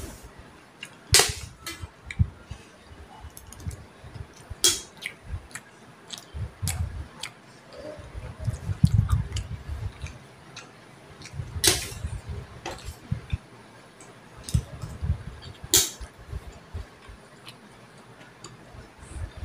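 A person eating macaroni close to the phone's microphone: a few sharp clicks of a spoon against a dish, several seconds apart, among soft low thumps of chewing and handling.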